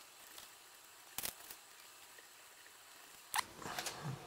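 Small sharp clicks of metal parts being handled: nuts going onto the standoffs of a drone's flight-controller stack. A doubled click about a second in and another a little after three seconds, with faint handling rustle after it.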